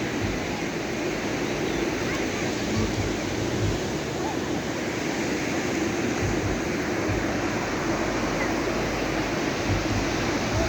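Ocean surf breaking and washing onto the beach in a steady, even wash, with wind rumbling on the microphone in irregular low thumps.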